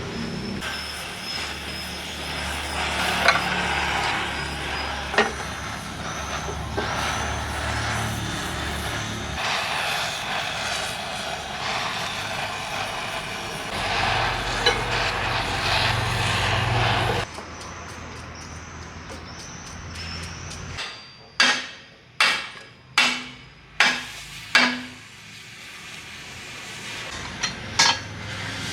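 A steady hissing noise with a low hum runs for most of the first seventeen seconds and then stops abruptly. A few seconds later come five hammer blows on metal, each ringing briefly, with a few light metal clinks near the end.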